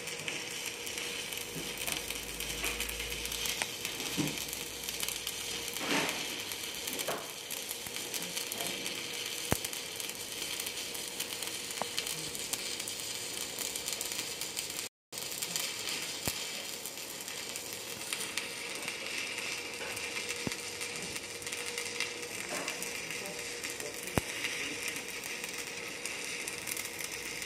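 Stick (shielded metal arc) welding arc, sizzling and crackling steadily as a bead is run. It cuts out for an instant about halfway through.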